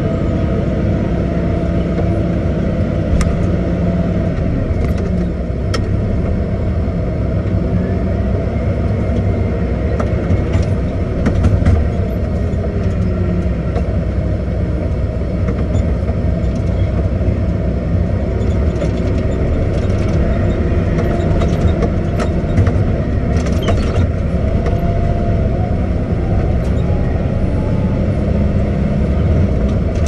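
Caterpillar 623K elevating scraper running and working, its engine and drivetrain droning steadily close to the machine, with scattered metallic clicks and rattles from the scraper's workings.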